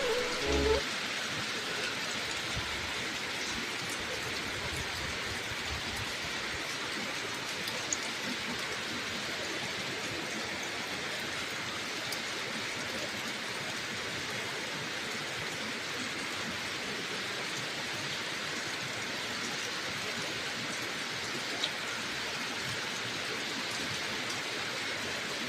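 Steady rain falling, an even hiss, with two brief ticks: one about eight seconds in and another late on.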